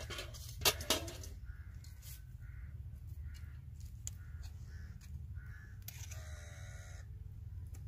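Birds calling in a repeated series of short calls through the middle, then one longer call about six seconds in. Two sharp clicks come about a second in, over a steady low rumble.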